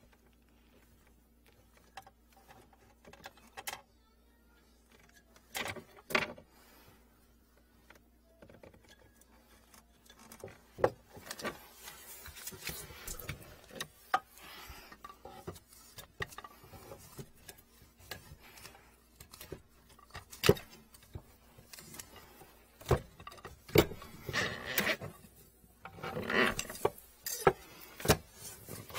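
Scattered knocks, scrapes and rustles of a corrugated plastic sink drain hose being handled and pulled by gloved hands, growing denser and louder near the end.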